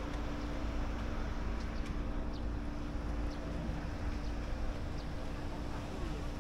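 A steady low mechanical hum, an engine or motor running at a constant pitch, with wind rumbling on the microphone.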